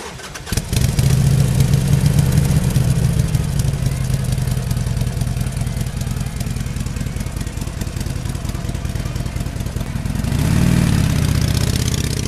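Motorcycle engine running with a low, pulsing note. About ten seconds in, its pitch rises and then falls again.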